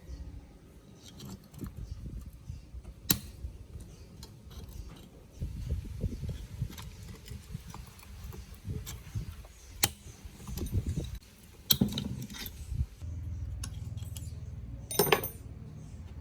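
Metal tools and small parts being handled in a workshop: scattered clicks, knocks and a few sharp clinks, with a short scraping rattle near the end.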